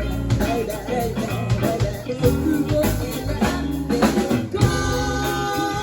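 Band music with guitar and drums, playing on steadily.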